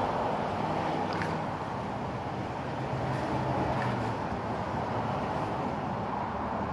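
Steady outdoor street noise, mainly a low rumble of traffic, with no distinct events.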